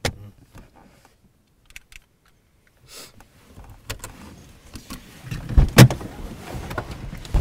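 Car occupants getting out: small clicks and rustling as they shift in their seats, then two heavy thumps about five and a half seconds in as the car doors are opened, with shuffling after.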